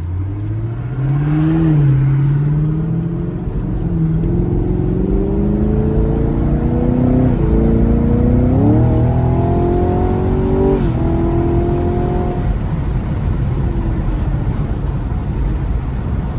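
Camaro SS V8 engine pulling through the gears: its note climbs, drops back at two upshifts about seven and eleven seconds in, then settles into a cruise. Steady road and wind noise runs underneath.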